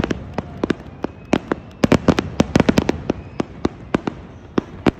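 Fireworks going off: a rapid, irregular string of sharp bangs and pops, thickest about two seconds in.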